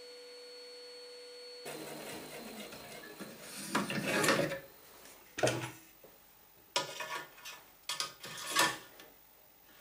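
A steady hum cuts off abruptly about two seconds in. Then come rubbing and scraping sounds with a few light knocks in several short bouts, from hands working at a bandsaw's metal table and blade guide.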